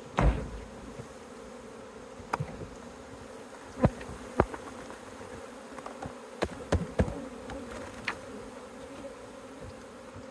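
A large swarm of honeybees buzzing in a steady, dense hum around an open hive box. Several sharp knocks and taps sound through it, the loudest near the start and twice around four seconds in.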